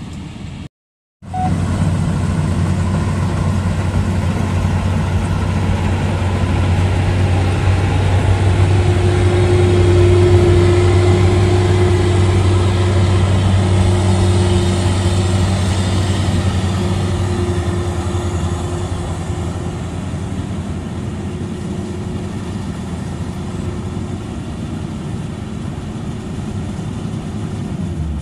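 Maxxi Bimo NDR 102L rice combine harvester's engine running steadily under load as it harvests. It grows louder toward the middle as the machine comes close, then slowly fades as it moves off. The sound cuts out completely for about half a second just after the start.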